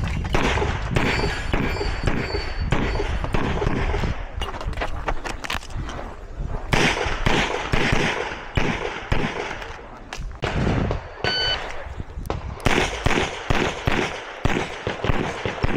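Gunshots fired in fast irregular strings of an IPSC practical shooting stage, with a short lull a little after ten seconds in. A brief electronic tone sounds about eleven seconds in.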